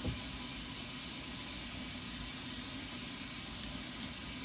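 Steady background hiss with a faint low hum, unchanging throughout, and a soft tap right at the start; no distinct working sound.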